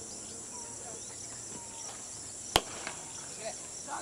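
A cricket bat striking the ball once, a single sharp crack about two and a half seconds in. Under it runs a steady high-pitched insect drone.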